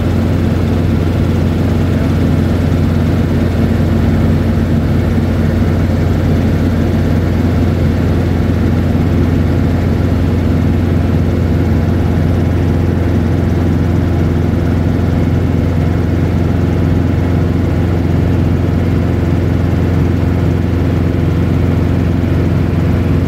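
Helicopter cabin noise in flight: a steady, unchanging drone of engine and rotor with a strong low hum.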